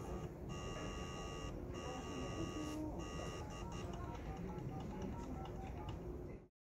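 Electronic fax tones from an HP OfficeJet Pro 9010's speaker, with the fax volume turned up: steady beeps about a second long, then shorter tones stepping up and down in pitch. The sound cuts off suddenly near the end.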